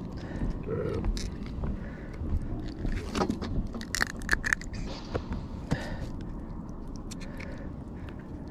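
Fishing pliers clicking and scraping on a lead jighead as it is worked out of a flounder's mouth, in short irregular clicks.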